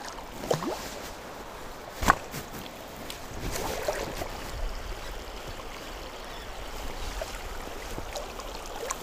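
Shallow river running over stones while a hooked trout is played and drawn into a landing net, with light splashing and a sharp knock about two seconds in.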